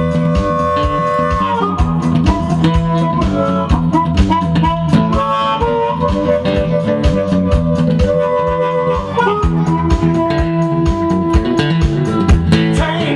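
Blues harmonica and acoustic guitar playing together. The harmonica holds long notes with bends and slides, while the guitar picks a busy, driving rhythm underneath.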